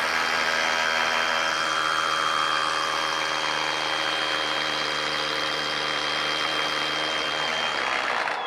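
Flex 24V brushless impact driver hammering steadily under load as it drives a 1-1/4 inch spade bit into a wooden beam, stopping abruptly near the end as the timed hole is finished.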